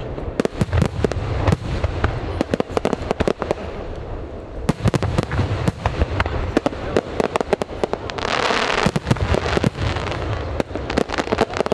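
Aerial fireworks bursting in a rapid, continuous barrage of bangs, denser about eight seconds in.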